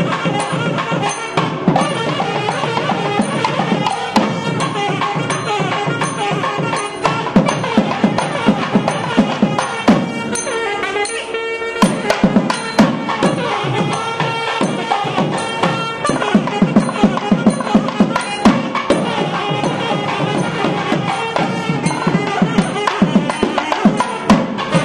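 Traditional Tamil temple music: a thavil barrel drum beating a fast, dense rhythm, with a sustained melody line over it.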